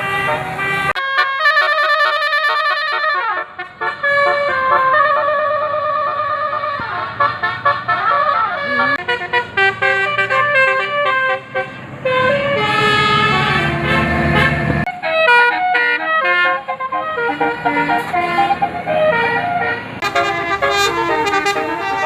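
A bus's musical 'telolet basuri' air horn playing a melody of quick stepped notes. A low rumble runs underneath for a few seconds in the middle and cuts off suddenly.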